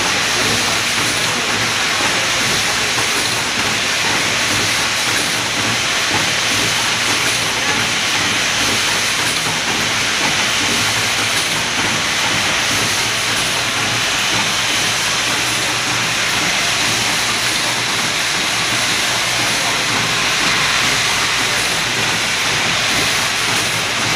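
Automatic double-port infusion cap assembly machine running: a steady, loud, even hiss from its pneumatic stations and vibratory bowl feeders.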